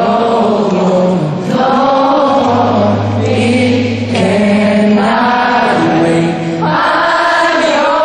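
Live acoustic pop song: long held sung phrases from several voices together over acoustic guitar, in three or four lines with short breaks between them.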